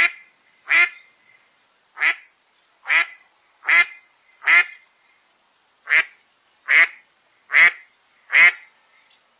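Duck quacking repeatedly: ten loud, single quacks about a second apart, with two slightly longer pauses and no other sound between them.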